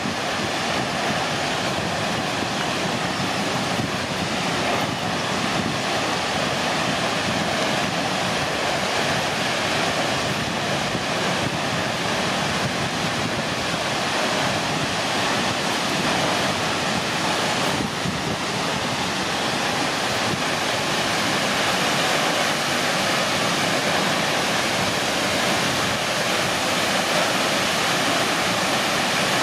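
Steady rush of the Acquafraggia waterfalls, a large volume of water falling down a rock face, growing a little louder in the second half.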